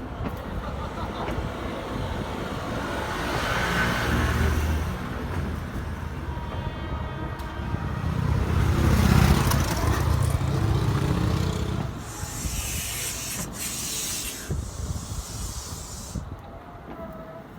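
DE10 diesel-hydraulic locomotive's V12 engine running at the level crossing, swelling in loudness twice, with a hiss lasting a couple of seconds about twelve seconds in.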